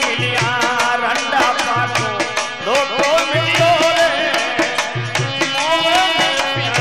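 Instrumental passage of a Rajasthani folk bhajan: hand drums beat a quick steady rhythm, with a deep bass stroke recurring about every second and a half, under a melody line that bends in pitch.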